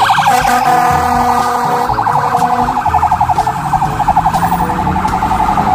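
Ambulance siren in a fast warble, its pitch shaking rapidly up and down many times a second.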